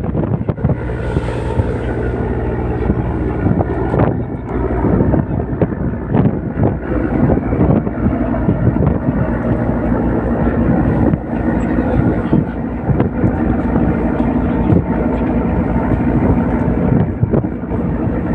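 A boat engine running at a steady hum while strong wind buffets the microphone in irregular gusts.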